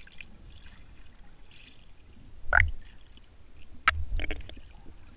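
Water sloshing and bubbling against an underwater camera, with a low rumble of moving water and a few short gurgles. The loudest gurgle comes about halfway through, followed by a sharp click.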